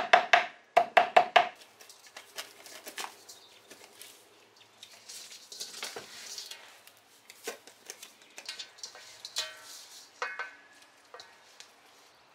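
Kitchen work while a fish is prepared: a knife and utensils knocking and scraping. A quick run of sharp knocks comes near the start, then scattered softer knocks and scraping.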